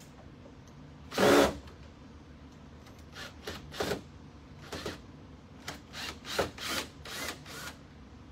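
Power drill-driver run in short trigger bursts, backing out the hinge screws of a wooden cabinet door. There is one loud burst about a second in, then a quick string of short ones from about three seconds on.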